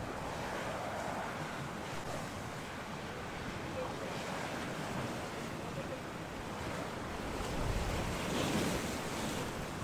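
Gale-force wind buffeting the microphone over rough, choppy sea washing: a steady rushing noise that swells louder for a moment near the end.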